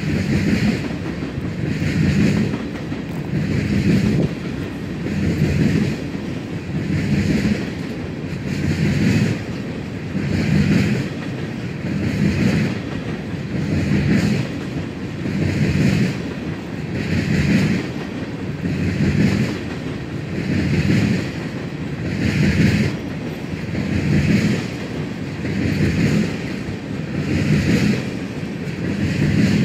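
A freight train of tank cars rolling past, its wheels clacking on the rails in a steady rhythm of about one beat every second and a half to two seconds over a continuous rumble.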